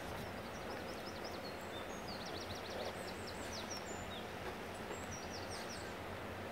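A small songbird singing in quick runs of short, high chirps over a steady outdoor background hiss and rumble.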